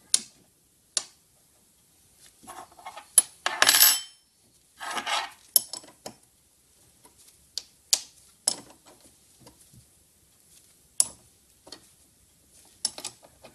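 Metal spanner clinking on the nuts and steel arms of a brake lathe cutting head while the pivot-arm nuts are given their final tension: a string of sharp metallic clicks, with two short metallic rattles about three and a half and five seconds in.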